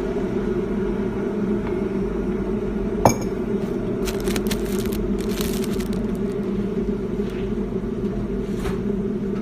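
Kitchen clatter of dishes and utensils: one sharp clink about three seconds in, then a run of lighter clinks and knocks, over a steady low hum.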